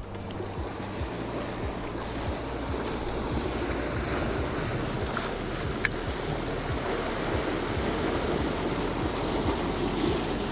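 Sea surf washing against a rocky shoreline in a steady rush, with wind buffeting the microphone. A single sharp click about six seconds in.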